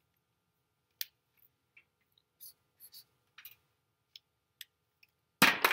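Felt-tip marker drawing on chart paper: a click, then several short, faint scratchy strokes, and a louder brief noise near the end.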